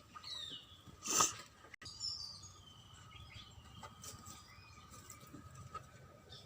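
Faint bird chirps and calls in the background, with one short rustling burst about a second in.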